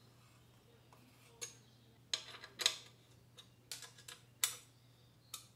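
Hand ratchet clicking in short, irregular spells of sharp metallic ticks as the engine mount bolt holding a radiator guard brace is run down.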